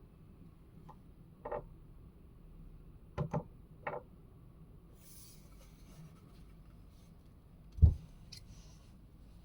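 Foamless mechanical keyboard with an aluminium plate giving a few separate clacks and knocks, with one much louder deep thump about eight seconds in and faint rubbing between them.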